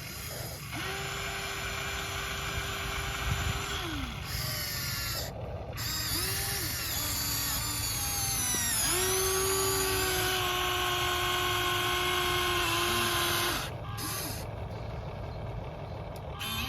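Huina 1593 RC excavator's small electric motors whining as the model is worked, the pitch holding, sliding up and down, and switching as different motors start and stop.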